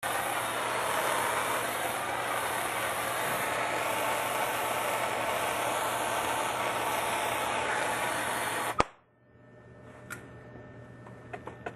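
A gas plumbing torch burning with a loud, steady hiss, shut off with a sharp click near the end. A few faint clicks follow.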